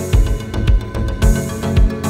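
Background music with a steady beat: a deep drum hit about twice a second, with lighter high ticks between.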